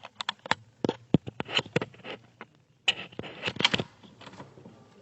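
Felt-tip marker scribbling on a doorbell camera's housing, picked up through the doorbell's own microphone as a run of irregular scratches and sharp taps. There is a short pause about two and a half seconds in, then a denser burst of scribbling.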